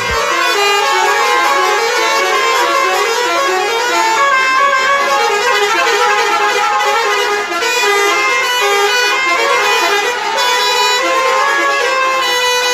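Musical air horns on decorated tourist buses blaring a continuous stepping tune, several horn tones overlapping.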